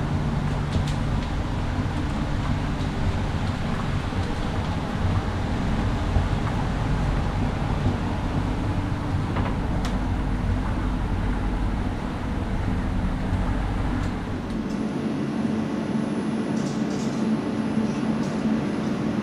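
Interior running noise of a CAF Urbos 3 tram: a steady low rumble with a low hum as it rides along. About three-quarters of the way in, the rumble gives way to a steadier hum with a faint high whine, heard beside the tram at the platform.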